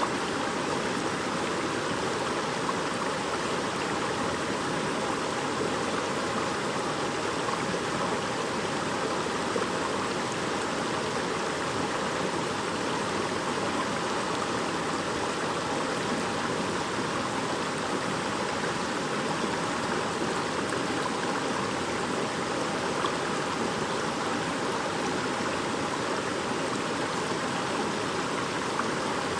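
Shallow brook babbling steadily, an even, unbroken rush of running water.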